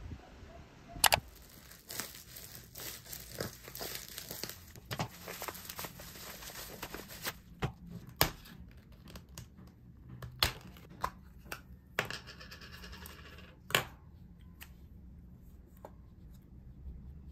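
Cardboard film box being torn open, with crinkling and tearing of the packaging, then a run of sharp clicks and taps as the 35 mm film canister is handled.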